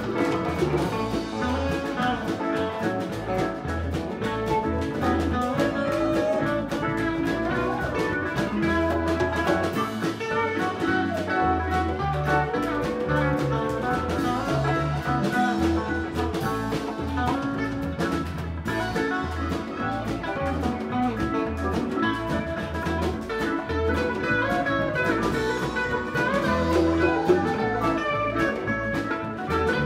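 Live band playing an instrumental passage: a lead guitar bending notes over a bass line and a drum kit keeping a steady beat.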